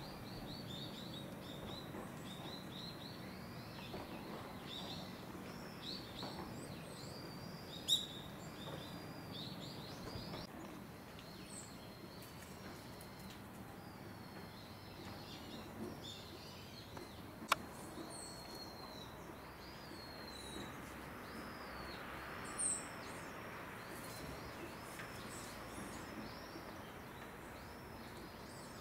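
Small birds chirping continuously in short, repeated, curving notes over a low steady background rumble, with two sharp clicks, one about eight seconds in and one about ten seconds later.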